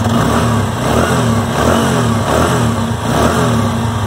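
TVS Apache RTR 160's single-cylinder four-stroke engine running just after being started, its pitch wavering slightly. The engine is freshly rebuilt after crankshaft work, and the owner hears no abnormal noise in it.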